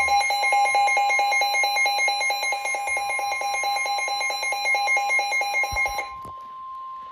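NOAA Weather Radio's steady warning alarm tone, with several weather alert radios' own alarms beeping rapidly over it. The radios' alarms cut off about six seconds in while the steady tone runs on. The tone signals that a warning, here a flood warning, is about to be broadcast.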